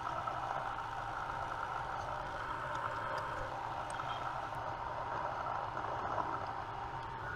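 Drill spindle and motor running steadily while center-drilling a radial hole in a metal ring, then shutting off at the very end.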